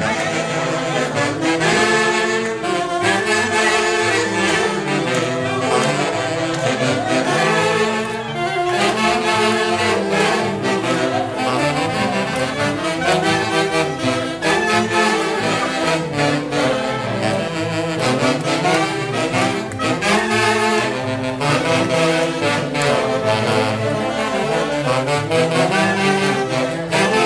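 Brass band music: several wind instruments playing a continuous melody together.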